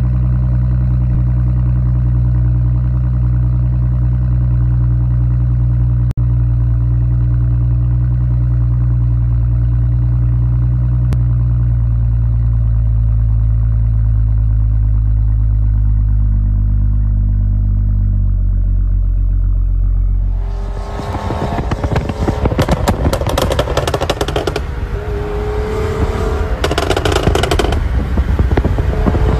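Stage 2-tuned BMW 535i F10's turbocharged inline-six idling steadily at its quad exhaust tips for about twenty seconds. After a sudden change, the car is driven hard, its engine revving up with rapid crackling and wind rush.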